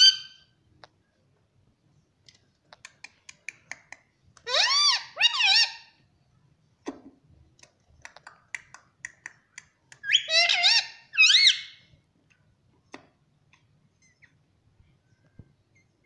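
Indian ringneck parrot calling in two short bursts, about four seconds in and again about ten seconds in, each a few quick notes that swoop up and down in pitch. Light clicks and taps are heard between the bursts.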